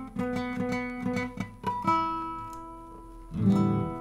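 Acoustic guitar strummed: a few chords, one left ringing and fading in the middle, then a louder strum near the end.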